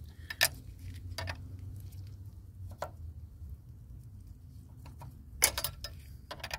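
Sharp metallic clicks and clinks of a wrench on the fuel line nut and fittings as the nut is tightened onto the fuel pressure regulator housing: a few single clicks, then a quick cluster just after five seconds and one more near the end.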